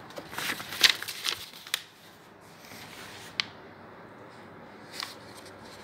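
Paper leaflets and booklets rustling and being handled, with short sharp clicks: a cluster in the first two seconds, the loudest about a second in, then two single clicks later on.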